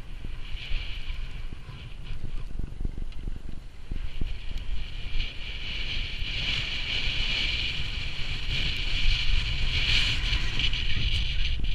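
Skis hissing and scraping over packed snow during a downhill run, with wind buffeting the microphone in a low rumble. The hiss grows louder about halfway through as speed builds.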